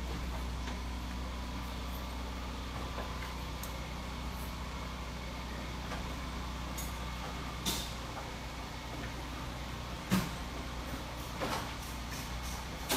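Motorised folding gate moving its panels, a faint motor whine over a steady low hum, with three short knocks in the second half, the sharpest about ten seconds in.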